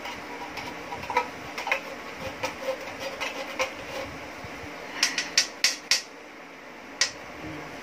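A metal spoon scraping and tapping inside a condensed milk can, a run of light clicks a few times a second, with a quicker cluster of louder taps about five seconds in and one more near the end.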